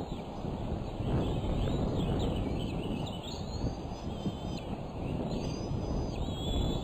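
Low, uneven rumbling noise on the outdoor nest-camera microphone, with thin, high whistled bird calls that glide up and down several times, a clearer call near the end.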